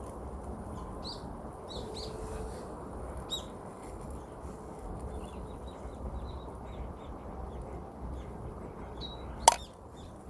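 Small birds chirping now and then over a steady low outdoor background noise, with a single sharp snap about nine and a half seconds in, the loudest sound.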